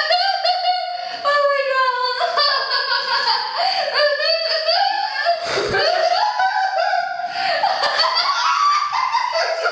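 A drunk young woman laughing, high-pitched and nearly without pause, in long drawn-out peals and squeals rather than words.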